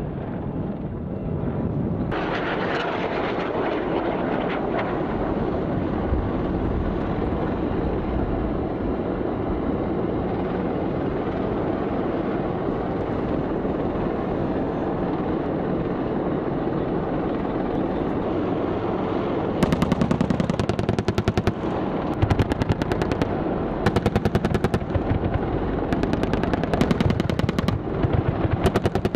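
AH-64 Apache helicopter: steady rotor and engine noise, joined about two-thirds of the way in by repeated bursts of rapid automatic gunfire, the loudest sound.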